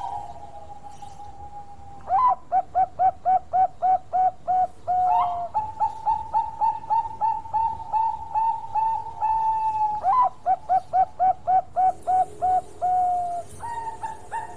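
Zebra dove (Bangkok perkutut) cooing its staccato song: quick runs of short, even notes, about five a second, each run closing on a longer drawn note. The song starts about two seconds in, carries on with a slightly slower run, and starts again about ten seconds in.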